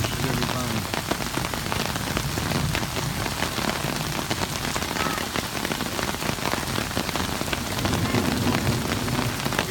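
Heavy rain pouring steadily onto a flooded street, a dense hiss of drops hitting standing water.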